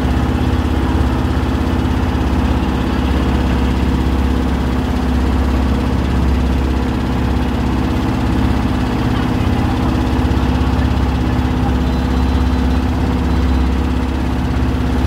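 Motorboat engine running steadily underway, a constant low drone with a steady hum, over the rush of water and wake along the hull.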